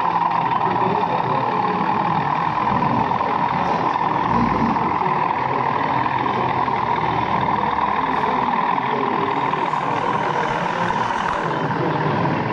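Sound-fitted model locomotive playing a steady engine-running sound through its small onboard speaker, with background chatter.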